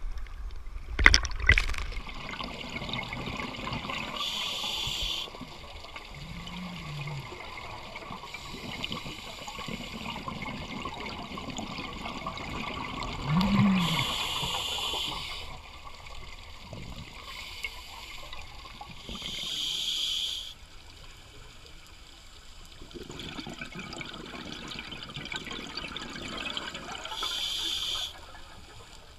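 Underwater sound through a camera housing: a scuba diver's regulator exhaling bursts of bubbles about every seven seconds, four times, over a steady water hiss. A sharp knock comes about a second in.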